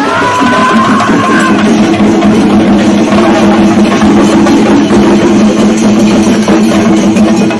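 Chenda melam: a group of chenda drums beaten hard and fast with sticks, a loud, dense, unbroken wall of drumming. A rising high tone sounds over it in the first second and a half.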